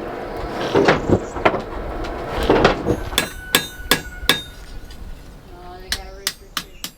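Hammer blows: dull knocks at first, then from about three seconds in a run of sharp strikes on metal, roughly three a second, each leaving a ringing note, and a few more near the end that ring lower.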